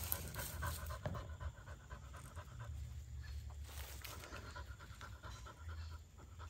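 A dog panting in quick, even breaths, softer in the middle.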